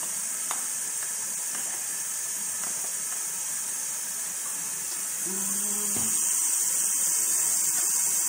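Pot of water at a rolling boil on an electric stove, a steady bubbling hiss, with a few light clicks as canned green beans are shaken into it. The hiss grows a little louder about five and a half seconds in.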